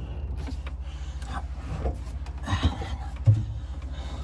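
Sink drain pipe fittings being handled and pushed together under a sink: a few dull knocks and rubbing scrapes, the loudest a thump a little after three seconds in, over a steady low hum.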